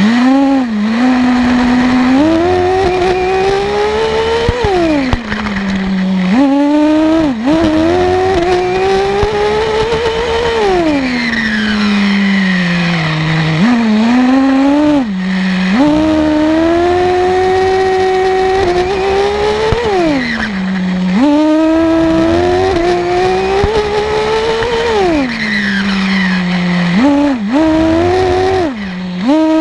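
Small nitro glow engine of a two-speed HPI RS4 3 RC car, heard from right beside the engine, revving up as the car accelerates and falling away as it slows, over and over, its pitch climbing steadily through each run.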